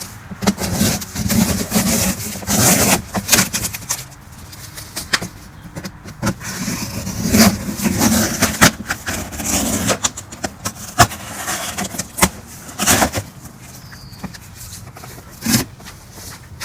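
Large cardboard shipping box being opened and pulled apart: repeated tearing and scraping of cardboard with scattered sharp knocks and clicks.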